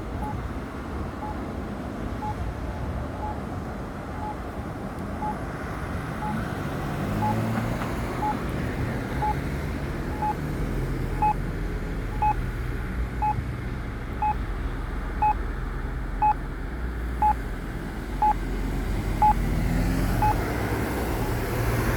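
Accessible pedestrian signal push-button locator tone beeping about once a second, a short high beep that is louder in the middle stretch and stops shortly before the end, over traffic passing through the intersection.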